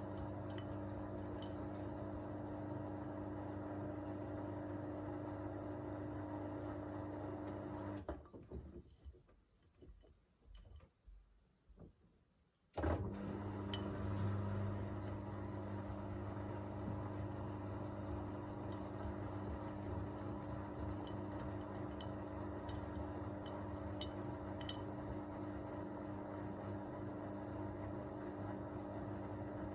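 Miele Navitronic W3985 WPS front-loading washing machine in its wash phase: the drum motor runs with a steady hum. It stops about eight seconds in for a pause of about four seconds, then starts again with a click, turning the drum the other way.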